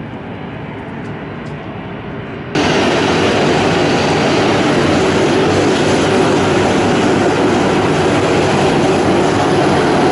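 Twin jet engines of a Boeing 737 airliner running at taxi power, a steady rushing noise. About two and a half seconds in it jumps abruptly much louder and brighter, as heard from close beside the engines.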